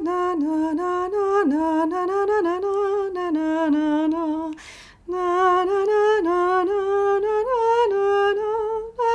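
A woman humming a slow, wordless tune with vibrato, in two phrases with a brief pause for breath about halfway through.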